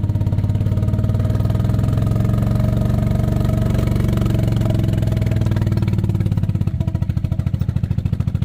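A small engine running steadily with an even, rapid pulsing beat; about seven seconds in its sound eases off and becomes thinner.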